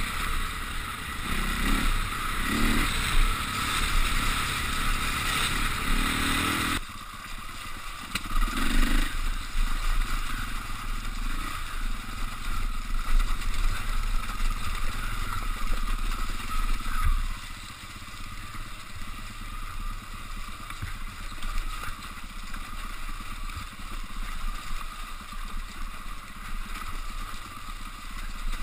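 KTM off-road motorcycle engine running and revving up and down as the bike is ridden over a rough, wet trail. The sound drops abruptly about seven seconds in.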